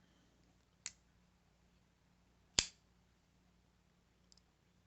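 Sharp clicks from a QSP Penguin folding knife being worked in the hand, as its blade is opened and closed: two clicks about a second and a half apart, the second louder, then a faint tick near the end.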